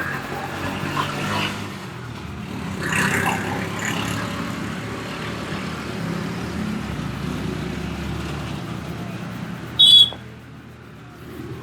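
Roadside traffic noise with a vehicle engine running steadily. About ten seconds in comes a brief, sharp high-pitched burst.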